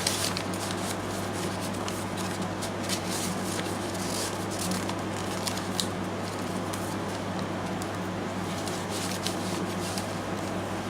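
Paper pages and tucked-in ephemera of a handmade journal being turned and handled: scattered crisp rustles and light clicks over a steady low hum.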